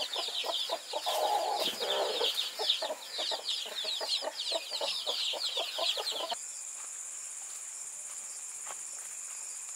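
A brood of newly hatched chicks peeping, many quick, high, falling chirps overlapping, with a lower call about a second in. About six seconds in the sound changes abruptly to a steady high buzz of crickets.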